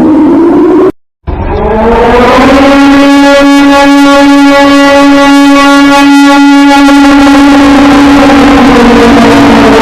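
An outdoor warning siren winds up over about two seconds to a steady, loud tone and holds it, starting to sink slightly near the end. Before it, the falling tail of another siren tone cuts off abruptly about a second in.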